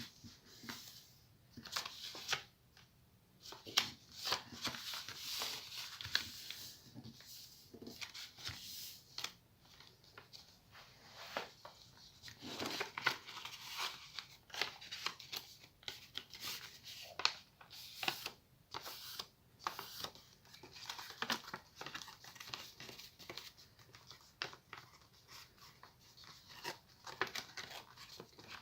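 Sheet of paper being handled and folded, with irregular crinkling and rustling and sharp crackles as creases are made.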